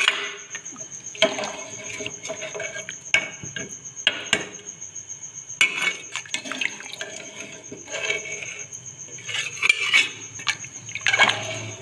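Metal ladle clinking and scraping against the side of a metal cooking pot while stirring a thin, simmering beef trotter curry, with irregular knocks throughout and the liquid stirred around.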